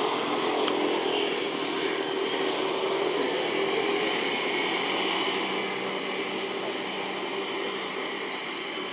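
Steady outdoor background noise: a dense, even hiss with faint steady tones in it, easing slightly in level toward the end.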